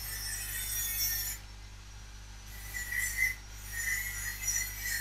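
A neighbour's angle grinder grinding, a high hiss with a steady high tone, in two spells: the first stops about a second and a half in, the second starts about halfway through and runs on.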